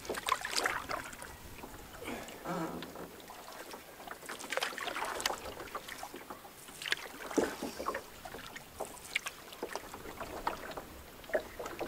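Canoe paddle strokes with a wooden paddle: water swishing and dripping off the blade, a stroke every couple of seconds.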